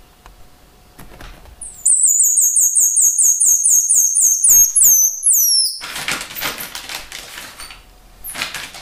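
Red-bellied tamarin calling: a rapid series of about a dozen short, very high chirps, about four a second, ending in a few longer falling notes. Rustling follows.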